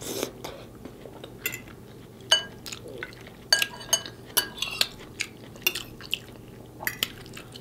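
Metal fork clinking and scraping against a dinner plate while picking up greens and cabbage: about a dozen short clinks at uneven intervals, some ringing briefly.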